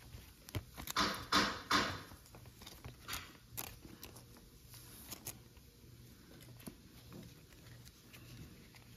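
Baseball trading cards and thin clear plastic being handled, with a few crisp crinkles and rustles about a second in, then quieter card sliding and shuffling.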